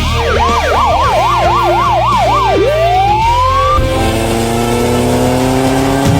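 Police siren yelping, its pitch swinging fast up and down about three to four times a second, then one long rising wail, over a steady low rumble. Held steady tones come in about four seconds in.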